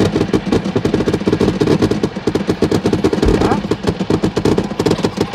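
Fireworks firing in rapid succession: a dense run of quick crackling reports, with one deep boom about three seconds in.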